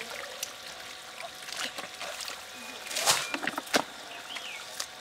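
Hands splashing and squelching in shallow muddy water while groping for fish, with scattered small slaps and drips. There is a louder splash about three seconds in and a sharp slap just before four seconds.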